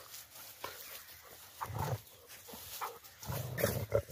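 Dogs growling while they scuffle: a short low growl about two seconds in, then a longer growl starting near the end.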